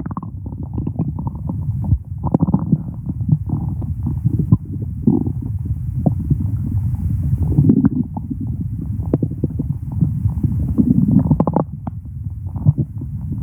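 A person's stomach growling: a continuous low gurgling rumble, full of small quick pops and bubbles.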